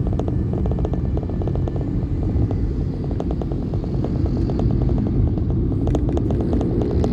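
Motorcycle engine running steadily while riding, heard as a low rumble with a rapid, even chugging beat.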